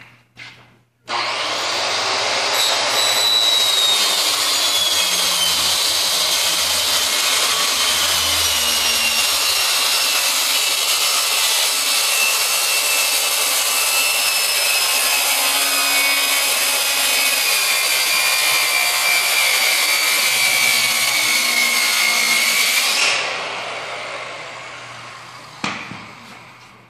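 6-inch Porter-Cable circular saw cutting lengthwise through a boxed stack of Marlite faux-wood panels, a long steady cut with the motor's whine slowly sagging under load. The saw is let off and the blade winds down, and a light knock follows near the end.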